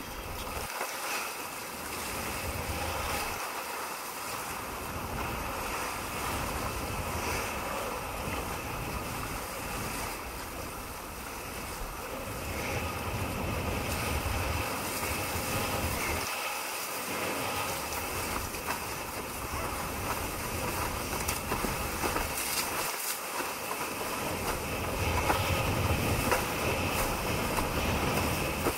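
Wind buffeting an action camera's microphone over water rushing and splashing under a windsurf board sailing at speed. The low rumble drops away briefly several times.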